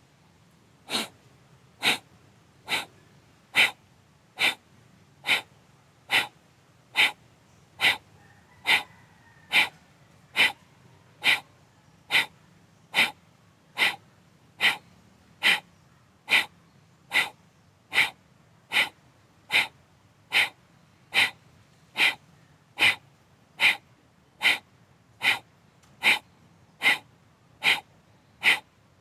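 Kapalabhati pranayama: short, sharp forced exhalations in ujjayi breath, each one driven by snapping the belly inward. They come at an even pace, a little more than one a second, starting about a second in.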